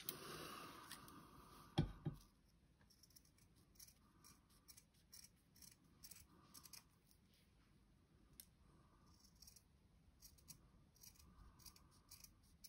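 Fabric scissors cutting cloth, faint: a short run of cuts with a sharp snip about two seconds in, then scattered small snips and rasps as a small piece is trimmed out.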